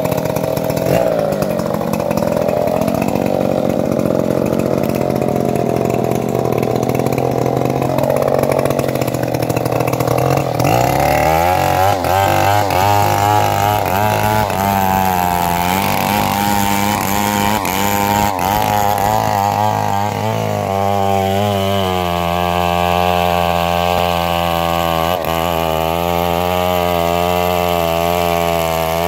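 Two-stroke chainsaw just started, running unevenly with its pitch wandering up and down for about the first ten seconds, then settling into a steady idle.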